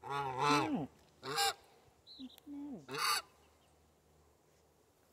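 Adult farm fowl honking: about four loud, nasal calls in the first three seconds, with a short high peep about two seconds in.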